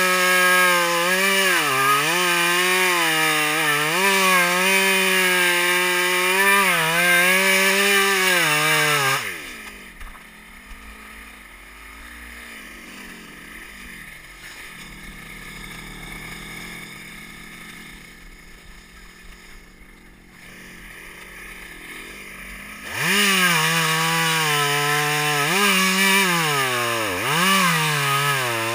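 Chainsaw cutting into a felled palm trunk, the engine's pitch dipping and recovering as the chain bites into the fibrous wood. About nine seconds in, the saw drops to a low idle for about thirteen seconds, then revs up sharply and goes back to cutting, its pitch again wavering under load.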